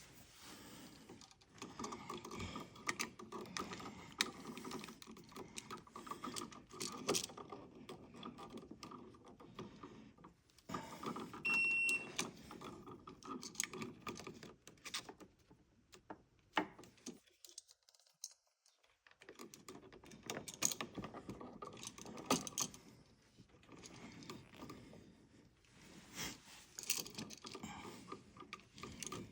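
Intermittent clicks, scrapes and light metal rattles of a screwdriver and metal parts as an old wall outlet and its cover plate are unscrewed and worked out of the electrical box, with one brief high squeak near the middle.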